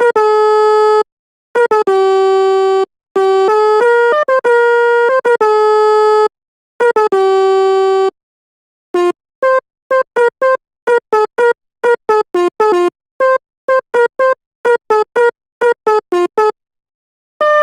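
Sampled Basuri telolet bus horn played as a tune in FL Studio Mobile: several longer phrases of stepping horn notes, then, about halfway through, a quick run of short separate toots.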